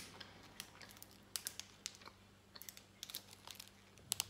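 Foil wrapper of a protein bar crinkling in the hand: faint, irregular crackles, with a couple of sharper ones near the end.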